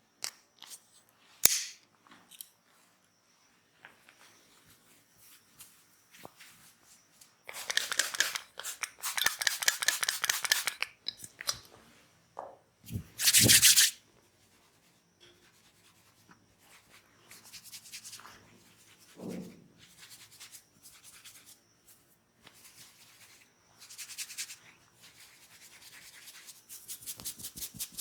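Hands rubbing skin in a massage, in bursts of quick strokes, with a sharp click about a second and a half in and the loudest burst just past the middle.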